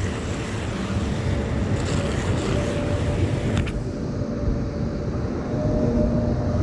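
Rainy city street ambience: a steady low rumble of traffic with a hiss of rain and wet tyres that drops away about four seconds in, and a single sharp click just before.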